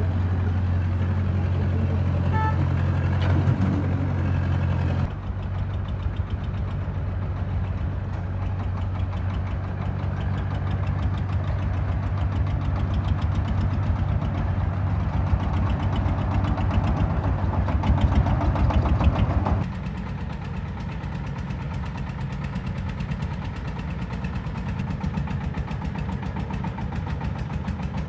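Heavy-machinery engine running steadily, its note changing abruptly about five seconds in and again near twenty seconds, with a louder stretch just before the second change.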